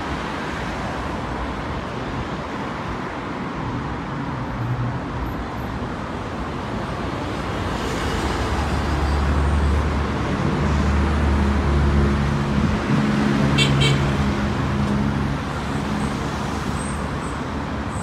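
Steady road traffic on a busy multi-lane city road, with a heavy vehicle's engine passing close and louder from about 8 to 15 seconds in.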